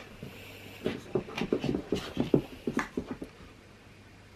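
A dog panting in a quick run of short, irregular breaths that starts about a second in and stops after about two and a half seconds.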